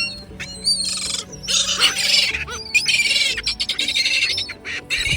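Young gulls screaming: a run of long, shrill calls one after another, overlapping, with a few short squawks between them.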